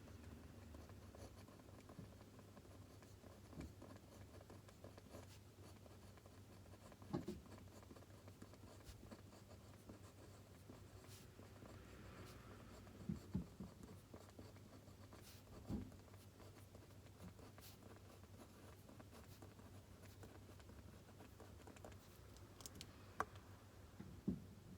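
Faint pen writing on paper, with a few short soft knocks now and then.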